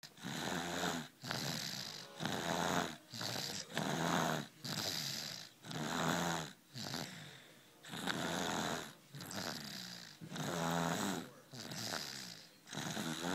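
Baby snoring in steady rhythm, a raspy rattling breath about once a second with brief pauses between.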